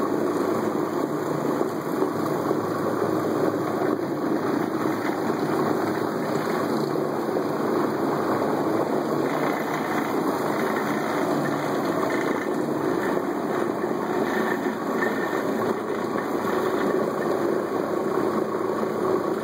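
Trinity CM carpet-cleaning machine running steadily, its electric motor driving a spinning pad that scrubs the carpet.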